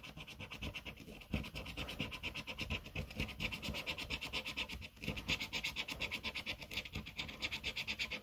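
A coin scraping the latex coating off a paper scratchcard in quick back-and-forth strokes, several a second, with a brief pause about five seconds in.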